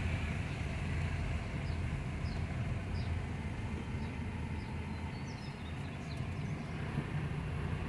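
Car driving slowly: a steady low rumble of engine and road noise, with short high chirps heard now and then.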